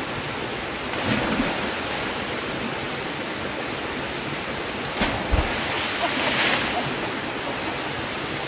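Steady rushing of a small creek waterfall pouring into a swimming hole. About five seconds in there is a sharp knock, and a second later a brief, louder rush of noise.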